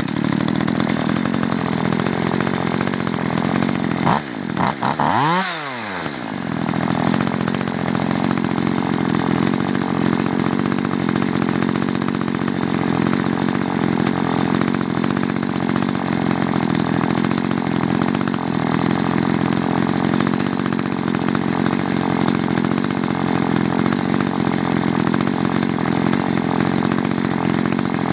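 A two-stroke chainsaw engine is pull-started, catches at once and runs steadily. It briefly revs up and drops back about five seconds in.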